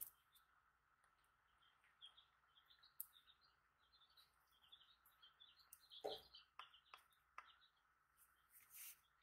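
Faint squeaks and scrapes of a spatula packing ointment into a small plastic jar, with a louder scrape about six seconds in.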